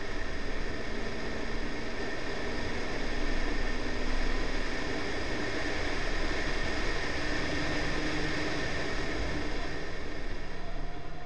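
Honda Civic's B18C4 1.8-litre four-cylinder engine running at speed on track, mostly buried under steady wind and tyre-on-road rush, heard from a camera mounted on the outside of the car by the front wheel.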